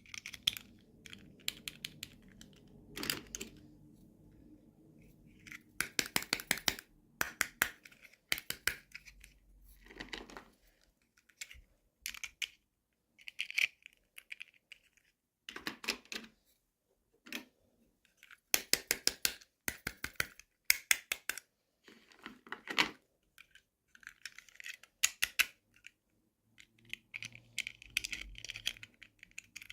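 Quick clusters of sharp plastic clicks and taps from small toy pieces and packaging being handled during an unboxing, with brief pauses between the clusters.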